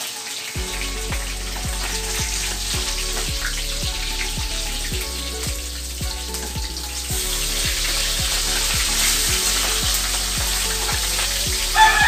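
Fish sizzling as it fries in hot oil in a metal wok. The sizzle grows louder about halfway through as a spatula turns the fish. Background music with a steady beat plays underneath.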